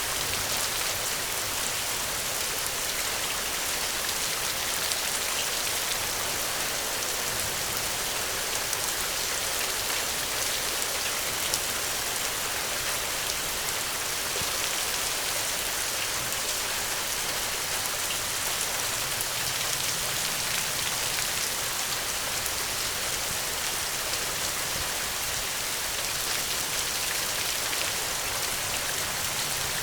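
Steady rain falling, an even hiss of many drops with a few separate louder drop ticks.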